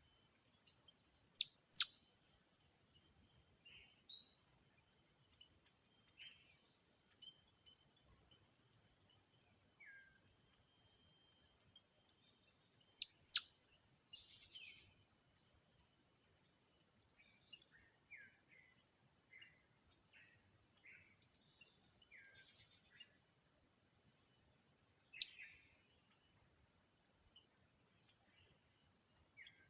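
Blue-crowned hanging parrots (serindit) giving short, sharp, high-pitched calls: a quick pair about a second and a half in, another pair around thirteen seconds, and a single call near twenty-five seconds. A steady high insect drone runs underneath, with faint scattered chirps of other small birds.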